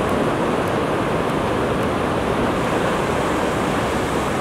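Surf breaking on a sandy beach: a steady, unbroken wash of waves.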